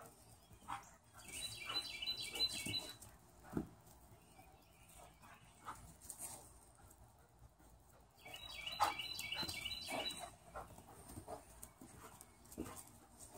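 A dog playing with a toy on grass and sand, with scuffling, chewing and light knocks. Twice, about seven seconds apart, comes a short run of rapid high-pitched notes.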